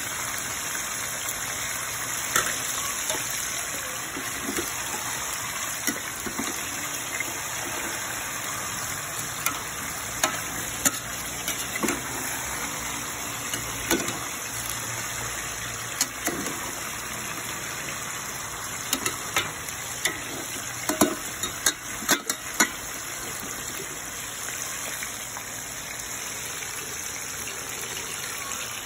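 Chicken pieces sizzling in oil in a metal pot, a steady hiss with scattered sharp pops and clicks that come thickest in the second half.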